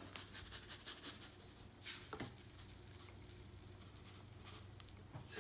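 Salt shaken from a salt canister onto trays of salt: a faint patter of falling grains, loudest about two seconds in.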